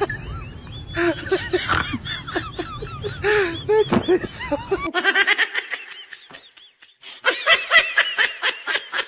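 People laughing in quick, high-pitched bursts. About halfway through it cuts off, goes quieter, then breaks out into a second run of laughter.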